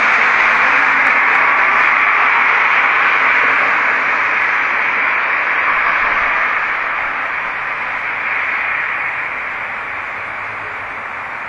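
Loud, even hissing noise, strongest in the middle range and without speech, slowly fading over the course of several seconds.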